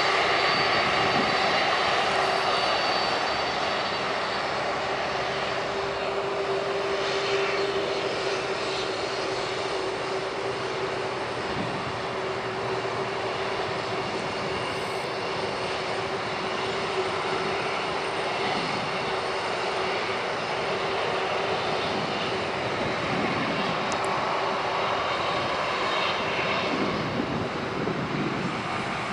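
Boeing 747-400 freighter's four turbofan engines running at low thrust while it taxis: a steady jet rumble with a constant whining tone.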